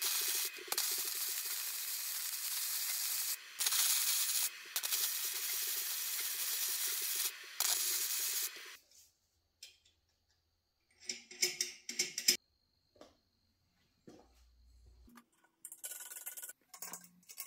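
A power tool working 3/16 inch steel plate gives a steady loud hiss in several runs with short breaks, lasting about nine seconds; after it, a few light metal clinks and taps.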